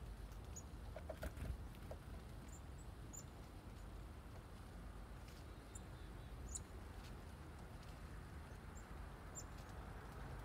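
Faint, very short, high chirps from chickadees, scattered every second or two over a steady low background rumble, with a few soft taps about a second in.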